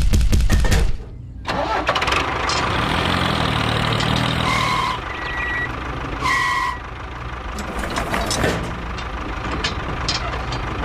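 A tractor engine cranking with a fast, regular knocking for about a second, dropping off briefly, then running steadily. Two short higher tones sound over it around the middle.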